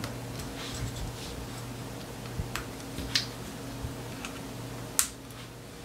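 Small plastic connectors being pressed onto HyPar building-toy pieces: a handful of scattered light plastic clicks, the sharpest about five seconds in, over a steady low hum.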